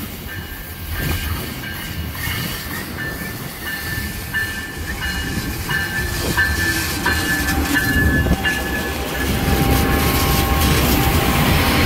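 Amtrak Siemens ALC-42 Charger diesel-electric locomotive arriving with a passenger train. It grows louder as it draws alongside, its engine and wheels on the rails swelling over the last few seconds, while a high ringing tone sounds on and off.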